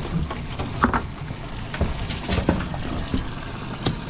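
Water sloshing against a boat's hull over a low steady rumble, with several sharp knocks and taps from a fish being handled on the deck.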